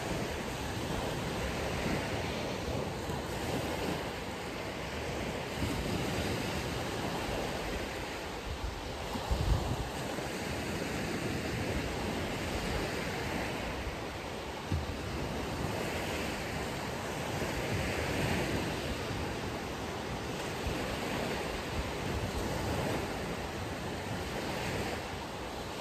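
Ocean surf breaking and washing onto a beach in a steady rush, with wind buffeting the microphone in a few low thumps about nine seconds in and again a little later.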